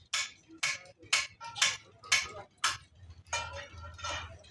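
Rhythmic metallic taps, about two a second, followed near the end by a longer scraping sound of metal on metal.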